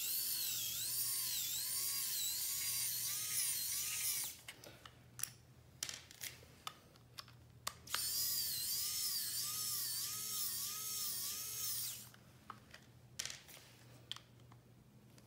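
Small cordless electric screwdriver running in two long bursts, its whine dipping and rising repeatedly, as it drives screws out of a robot vacuum's plastic drive-wheel gear housing. Light clicks and taps of handling the housing and screws come between and after the bursts.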